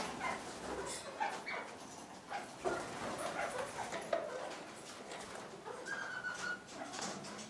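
Kakariki parakeets calling with short chattering notes, one call held a little longer about six seconds in, amid scattered sharp clicks and rustles of the birds on the branches and food.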